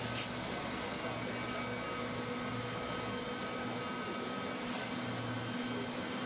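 Hand-held hot-air roofing welder running steadily, its blower motor giving an even hum and hiss as it heats a thermoplastic membrane seam.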